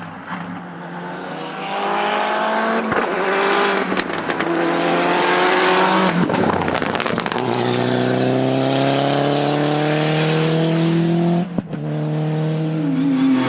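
Rally car engine accelerating hard, its pitch climbing in each gear and dropping at upshifts about six and eleven and a half seconds in. A brief run of sharp crackles comes around the first shift.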